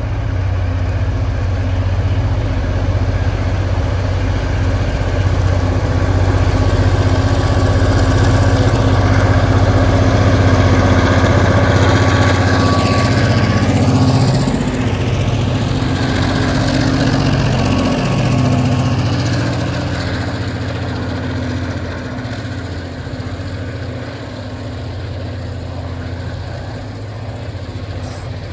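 Three Tasrail diesel-electric freight locomotives working under power as they haul a loaded log train past: the engines grow louder as they approach, loudest about twelve to fourteen seconds in, drop in pitch as they go by, then give way to the quieter running of the wagons on the rails.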